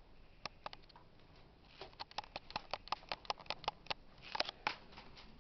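Cocker spaniel puppy sucking and chewing on a littermate's ear: a few clicks, then a regular run of quick clicks about five a second for about three seconds.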